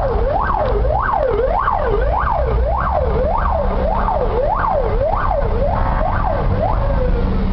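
Fire engine siren wailing in quick up-and-down sweeps, about one and a half a second, then winding down in a long falling tone near the end. A steady low rumble of engines and traffic runs underneath.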